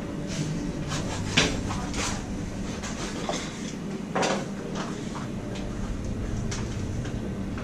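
Kitchen handling sounds: scattered clinks and knocks of a metal mixing bowl and frying pan on a gas stove, the sharpest about a second and a half in and another about four seconds in, over a steady low hum.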